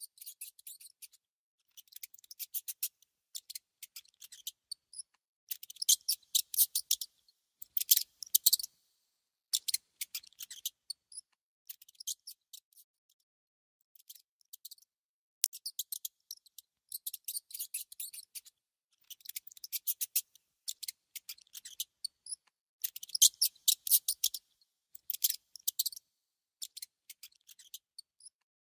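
A mouse gnawing and nibbling at food: short bursts of rapid, crisp clicking, each a second or two long, with brief pauses between.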